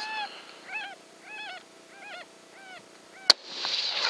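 A string of short coyote-type yelps, each rising and falling in pitch, about a dozen over three seconds. About three seconds in, a single rifle shot cracks out, a shot that misses the coyote, and a rush of noise follows.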